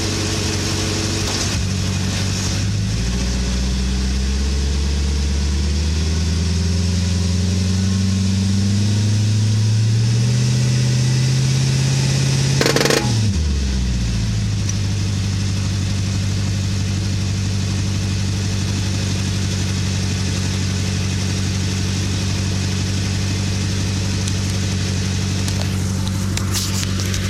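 2008 VW Touareg engine revved against the brake in gear, its pitch climbing steadily for about ten seconds. Then comes one sharp, loud pop from the drivetrain, and the engine drops back to a steady idle. The owner suspects the pop comes from the front differential under load.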